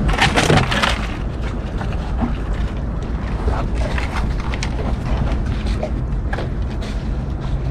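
Low wind rumble on the microphone, with a short noisy burst about half a second in and scattered light knocks.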